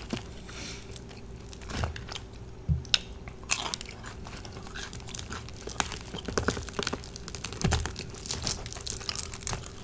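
Close-miked crunching and chewing of KFC extra crispy fried chicken, with the crackle of the crisp breading being pulled apart by hand: a series of irregular crunches and crackles.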